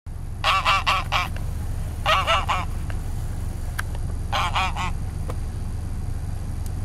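A goose honking in three quick bouts of about four honks each, a second or two apart, over a steady low rumble.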